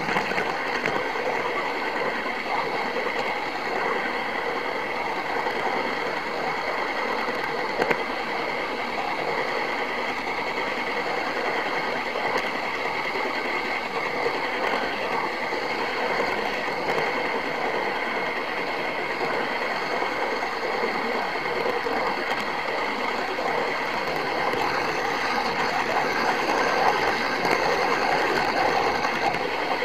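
OO gauge model train running on its track: a steady small-motor and gear whir with a fine rattle of wheels on the rails, heard from on board the train. It grows a little louder near the end.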